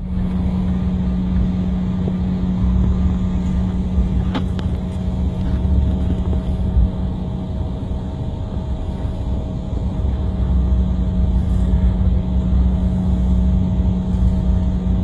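Aircraft engine noise heard inside the cabin while taxiing: a steady hum with one constant low tone over a rumble, and a single brief click about four seconds in.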